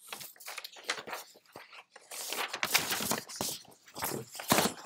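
Sheets of paper rustling and crinkling as they are shuffled through and handled, in a run of short irregular bursts that grows louder about two seconds in.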